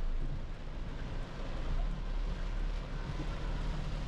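Steady cabin noise inside a 2010 Toyota Hilux pickup driving through heavy rain: the engine runs with a low hum, with tyre noise from the wet road and rain on the body and windscreen.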